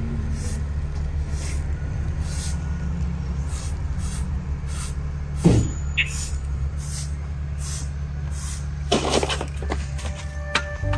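Broom bristles scraping across concrete pavement in regular strokes, about one every three-quarters of a second, over a steady low hum. Near the end comes a short burst of rustling and thuds as a person falls onto grass and plastic rubbish bags.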